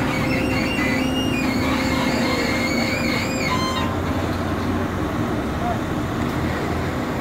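Heavy excavator's diesel engine running steadily under load, with a higher wavering whine over it for the first few seconds.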